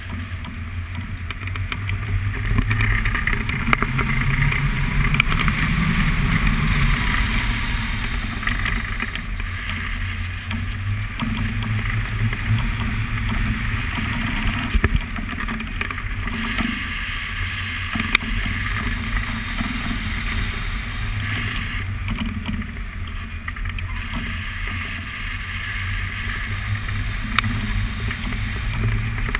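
Airflow rushing over the microphone of a camera on a hang glider in flight, a steady rush of wind noise that swells and eases.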